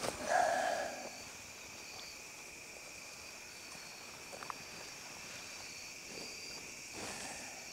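Steady chorus of crickets and other insects trilling in several high, unbroken pitches. A brief rustle stands out about half a second in, and a couple of faint ticks come about halfway.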